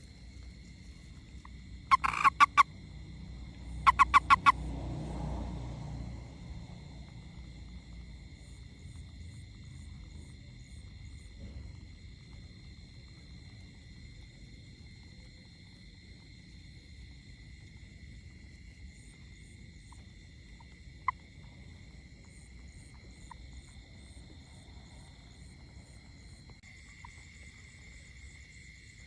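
A frog gives two short bursts of rapid pulsed calls about two seconds apart, over a steady high-pitched whine and faint repeated high chirps.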